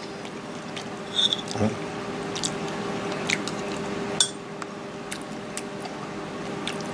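Metal spoon clinking and scraping against a plate as cooked squash is scooped up, a few sharp clicks spread through, one ringing briefly about a second in, over a steady low hum.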